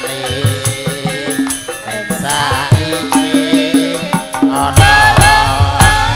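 Javanese gamelan ensemble playing tayub music, with a female singer (sinden) singing through a microphone in a wavering, ornamented line over repeated struck metal tones. Heavier low drumming comes in near the end.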